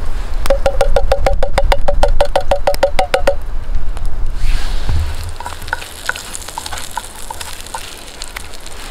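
Fast rhythmic metallic clinking in a metal mess tin, about seven strokes a second for roughly three seconds, like a spoon stirring. Then a campfire crackling softly, with food sizzling in a mess tin over the embers.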